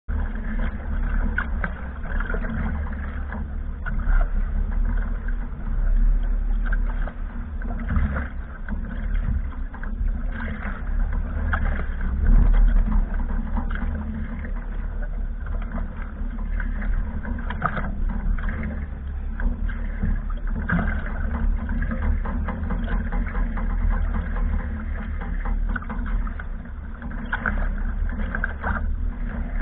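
Wind rumbling on the microphone and water rushing and splashing along the hulls of a Sprint 15 catamaran under sail, with irregular slaps and knocks and gusty surges in level.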